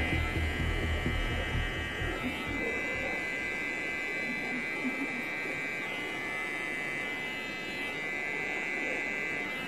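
Electric hair trimmer running with a steady high buzz while trimming the sideburn, its tone changing slightly a few times. Background music with a deep bass fades out over the first two seconds.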